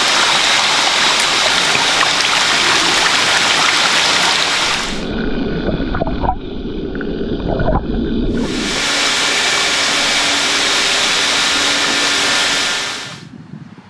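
Water rushing and splashing as a tank full of farmed salmon churns at the surface. For about three seconds midway, the sound turns to a muffled low rumble as the camera goes under the water. The rush of water returns, then fades near the end.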